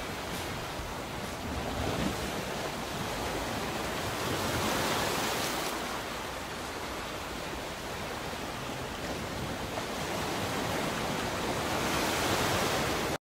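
A steady rushing, hiss-like noise spread evenly from low to high pitch, swelling and ebbing slightly. It cuts off suddenly near the end.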